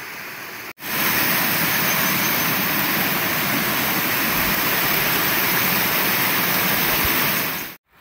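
Mountain creek rushing over rocky ledges and small cascades close to the microphone: a loud, steady rush of water that starts abruptly about a second in and cuts off just before the end.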